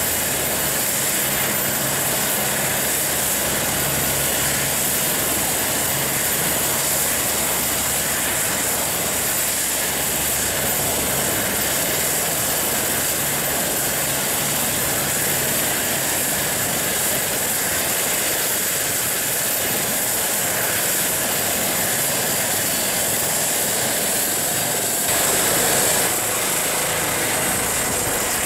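Eurocopter EC135 T2+ helicopter on the ground during start-up, its twin Turbomeca Arrius turboshaft engines running with a steady high turbine whine over a hissing rush as the main rotor turns. The sound swells briefly about 25 seconds in.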